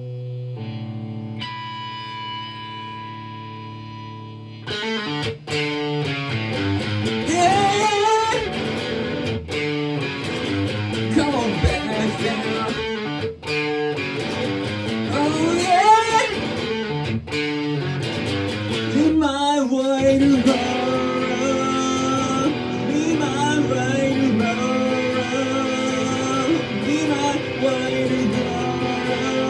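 Amplified electric guitar from a Telecaster-style solid-body, with a man singing: a few held chords ring for the first four seconds or so, then steady strumming under the vocal.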